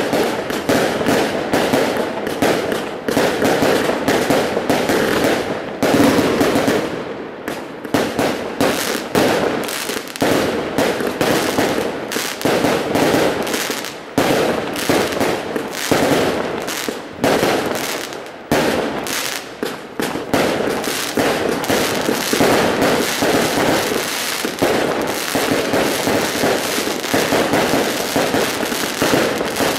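Aerial fireworks going off in a continuous barrage of rapid, overlapping bangs and crackles, easing briefly about seven seconds in.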